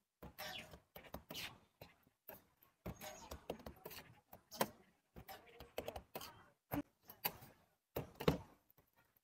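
Soft, irregular taps, pats and scrapes of hands and a metal scraper working scallion-pancake dough on a stainless-steel counter, with two sharper knocks, one about halfway through and one near the end.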